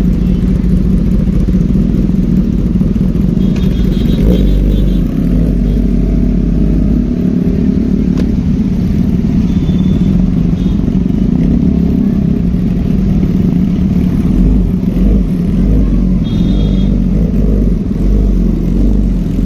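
Motorcycle engines running with a steady low rumble. Short high-pitched beeps sound twice, a few seconds in and again near the end.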